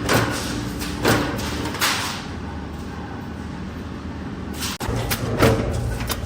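Steady machine hum in a steel-pipe fabrication shop, broken by about five sharp knocks and clanks, two of them close together near the end.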